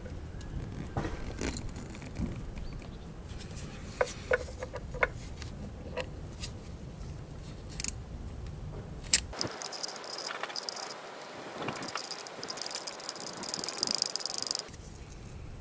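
Small metallic clicks and knocks of a bolt and tools being handled, then about nine seconds in a small socket ratchet clicks rapidly for about five seconds, winding in the camshaft position sensor's retaining bolt, and stops suddenly.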